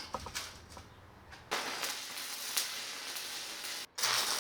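Stick-welding arc on a 3/16-inch 7018 electrode at about 230 amps, starting about a second and a half in after a few clicks and then crackling and hissing steadily. It breaks off for an instant near the end and resumes.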